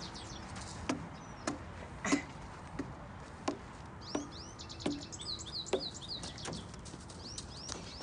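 A child's footsteps knocking on perforated playground stair steps as she climbs, a series of knocks about one every two-thirds of a second. Small birds chirp in the background around the middle.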